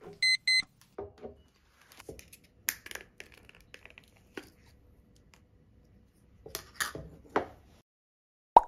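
Two short, high electronic beeps from a household device, followed by scattered clicks, taps and rustling as objects are handled, and one sharp click near the end.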